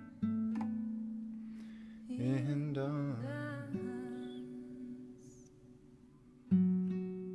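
Background music: plucked acoustic guitar notes that ring and fade, with a short wavering sung phrase about two seconds in.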